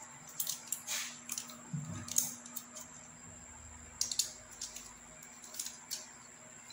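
Handling noise from a plastic-and-metal selfie-stick tripod: scattered light clicks, taps and scrapes as it is picked up off a wooden board and its legs and pole are moved.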